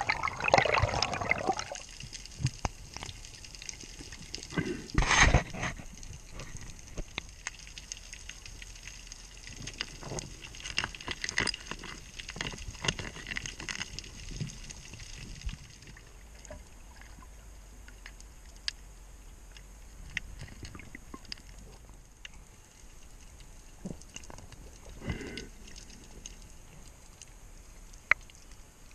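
Underwater sound through a diving camera's housing: bubbling and water noise in the first couple of seconds and a loud gush about five seconds in, then a low hiss with scattered small clicks.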